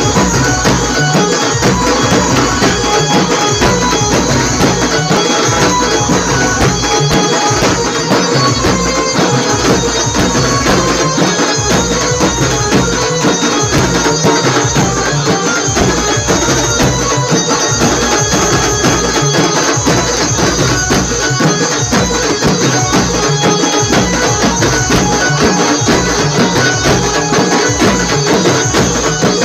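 A banjo-party band playing loud folk music: barrel drums beating a fast, steady rhythm under an amplified banjo melody.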